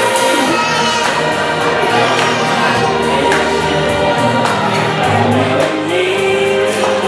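Recorded pop music with vocals played loud over the reception sound system for couples dancing.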